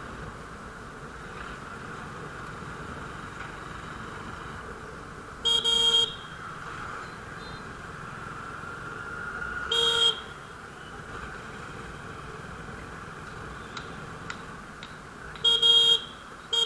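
Motorcycle horn beeping three short times, about half a second each: a few seconds in, about ten seconds in, and near the end. Underneath runs a steady wash of road, wind and traffic noise.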